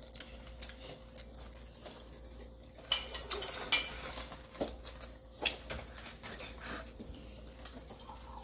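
Fork and chopsticks clinking and scraping against plates while noodles are eaten, with a handful of sharp clicks from about three seconds in.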